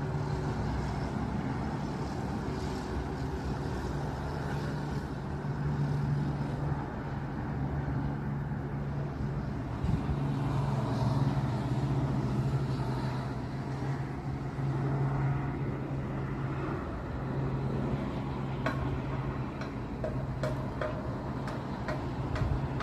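Helicopter running with a steady low drone that swells and fades slightly in level. A few short clicks sound near the end.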